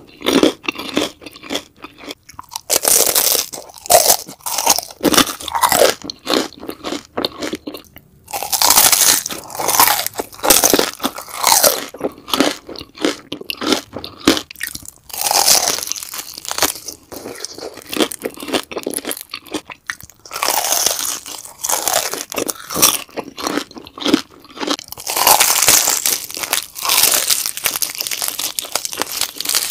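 Close-miked crunching bites and chewing of crispy deep-fried beef large intestine (daechang), the crisp casing cracking in quick irregular crunches throughout.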